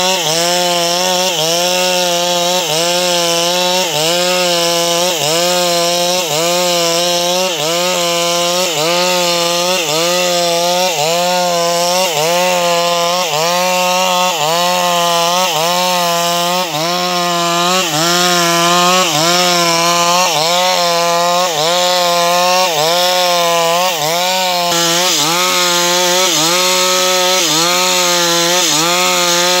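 Chainsaw at high revs ripping lengthwise through a sengon (albizia) log to cut boards, its engine note dipping and recovering about once a second under the load of the cut.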